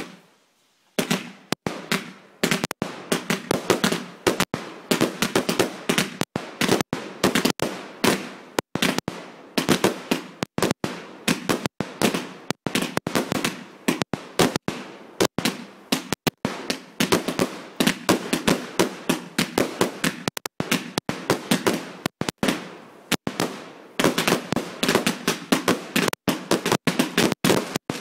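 Fireworks going off in a rapid, unbroken string of sharp bangs and crackles, several a second, starting about a second in and keeping up without a real pause.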